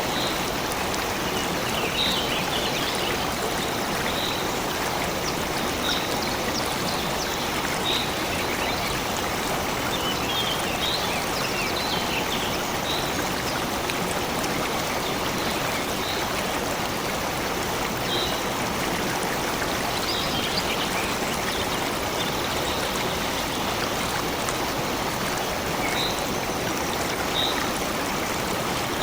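Stream of water running steadily, with a small bird giving short, high chirps every second or two over it.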